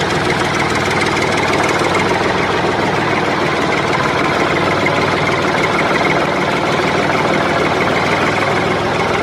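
A small motor running steadily with a fast, even rattle, the sound of a miniature DIY tractor's drive.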